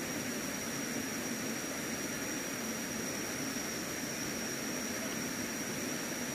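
Steady rush of a forest stream running over rocky rapids, with a continuous high-pitched insect whine over it.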